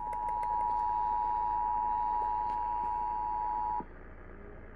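Emergency Alert System attention signal: a steady two-tone alarm (853 and 960 Hz together) that cuts off abruptly a little under four seconds in. A low steady hum and hiss continue under and after it.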